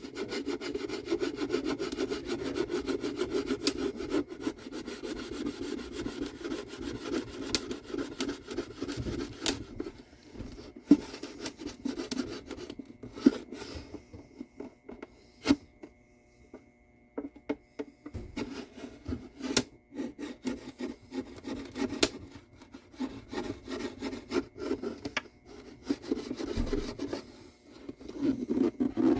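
A tool being worked along the glued seam between a wooden mandolin's back and its sides, prying the back off: fast, dense wooden scraping and rubbing, thinning out about a third of the way in to scattered sharp clicks and ticks, then scraping again near the end.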